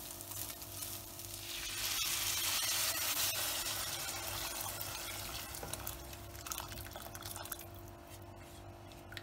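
Hot water poured from a kettle into a pot of rice sautéed in oil, swelling about a second and a half in and fading slowly. A spatula stirs the rice in the water.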